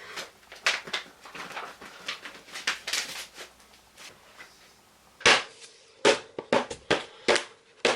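An irregular series of short, sharp knocks or taps, soft and scattered at first, then louder and crisper from about five seconds in.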